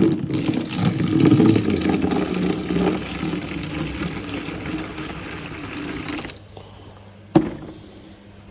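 Water being poured into a gold pan of concentrates, starting abruptly and running for about six seconds before it stops. A single sharp knock follows about a second later.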